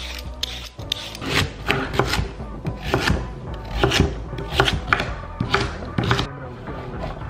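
Chef's knife chopping raw sweet potato into chunks on a wooden butcher block: a run of sharp chops, about two a second, starting about a second in.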